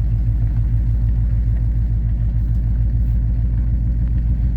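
Inside a truck's cabin while it drives slowly: a steady low engine and road rumble with an even low pulsing.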